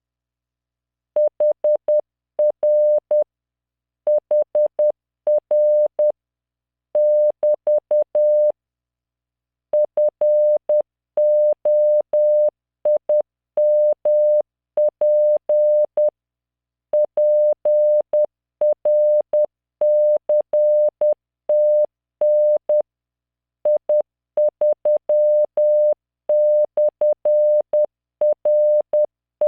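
Morse code practice tones from the LearningMorse training software: a steady 600 Hz beep keyed on and off in dots and dashes at 10 words per minute, sending random five-character code groups. The keying starts about a second in, with slightly longer gaps between groups.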